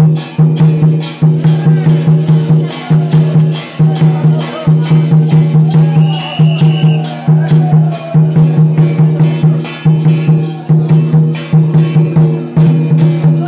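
A temple procession's percussion troupe playing loudly: fast, steady strokes in short repeated phrases about a second long, with brief breaks between them.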